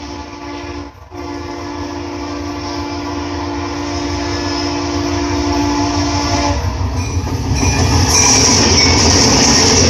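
Train horn sounding a steady two-tone chord for about five seconds, then the louder rush and hiss of the passing train.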